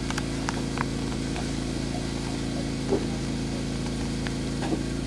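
A steady low mechanical hum like an engine or motor running, with a few faint light ticks and taps over it.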